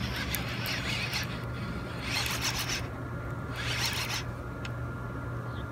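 Shimano Scorpion DC baitcasting reel being cranked in about three short raspy spurts, winding line in on a hooked fish.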